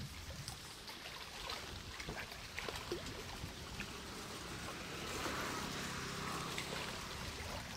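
Open-air ambience dominated by wind rumbling on the microphone, with faint scattered clicks.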